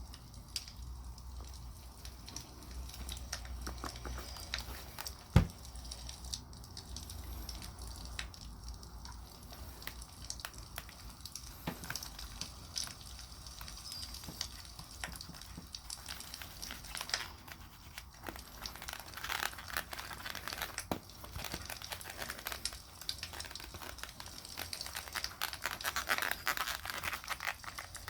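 Wood campfire crackling with scattered pops, one sharp snap about five seconds in, and denser crackling over the last several seconds.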